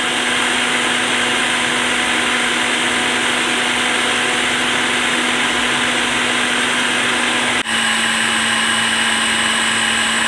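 Electric food chopper motor running steadily, its blade whipping eggs, vinegar and oil into mayonnaise. The hum dips for an instant about three-quarters of the way through, then carries on at a slightly different pitch.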